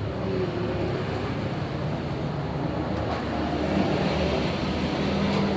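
Steady engine noise, a continuous low hum with a noisy wash over it.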